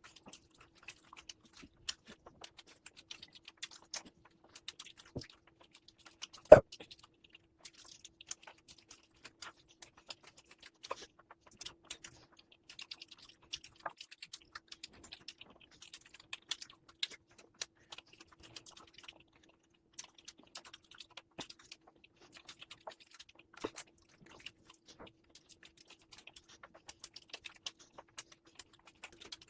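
Close-miked chewing of mutton fat curry and rice: many small wet mouth clicks and smacks, with one sharp knock about six and a half seconds in.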